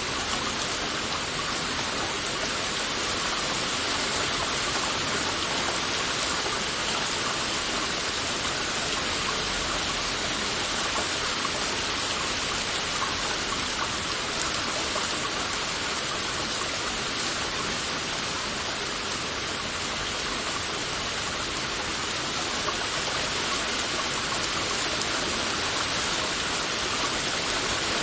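Heavy rain falling steadily, a dense even hiss of many drops.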